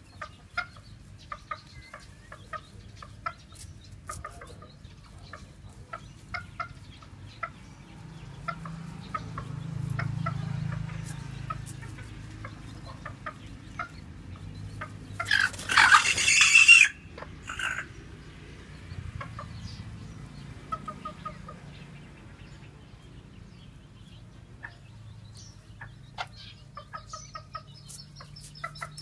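A white black-tailed bantam hen, broody and off her eggs to feed, clucking in short repeated notes while she pecks feed off concrete with small tapping clicks. A loud call lasting about a second and a half comes near the middle.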